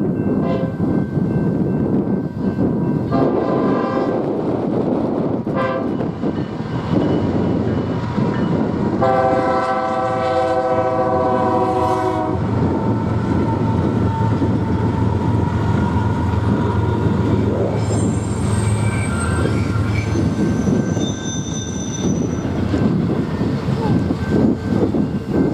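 A train passing close, running with a steady heavy noise, its air horn sounding: short blasts in the first few seconds, then one long blast of about three seconds near the middle. Faint high squeals come in later.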